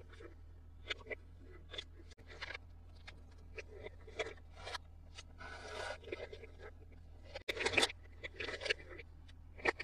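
Toy packaging and small plastic toys being handled: scattered clicks, taps and scrapes, with longer crinkling rustles about six seconds in and again near eight seconds.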